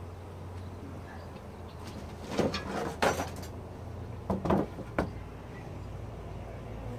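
Wooden outer cover being set down on a Langstroth beehive: a few knocks and short scrapes of wood on wood over about two and a half seconds, over a steady low hum of bees.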